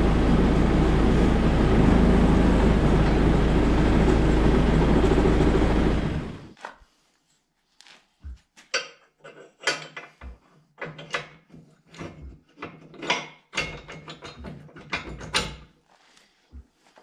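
A loud, steady rumbling machine noise that dies away about six seconds in. It is followed by irregular sharp metal knocks and clinks as a hand tool is worked at the base of a forklift mast.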